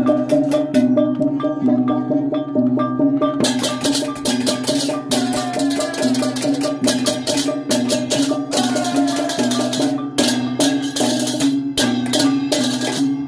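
Balinese processional gamelan playing: large hand cymbals (ceng-ceng) clashing rapidly over a kendang drum and gongs beating out a low two-note figure that repeats steadily. The cymbal clashing grows denser about three and a half seconds in.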